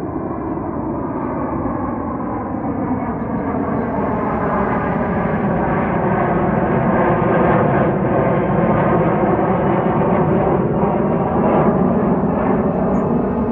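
Two Boeing EA-18G Growler jets flying over, their twin turbofan engines making loud, steady jet noise with a droning hum of several tones whose pitches drift slowly. The noise swells over the first half and then holds.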